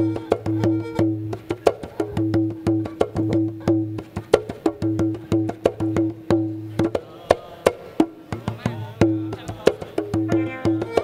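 Khmer wedding music (phleng kar): quick, sharp wooden-sounding percussion strikes over a steady held note and a pulsing low drone.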